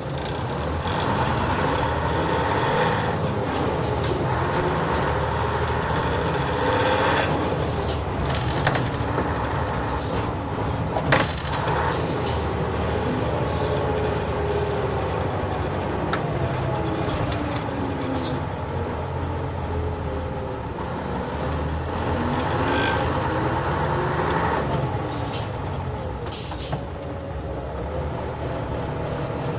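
Nissan Diesel city bus running in service, heard from inside at floor level: the diesel engine's note rises and falls several times as the bus pulls away and changes speed. A single sharp knock comes about eleven seconds in.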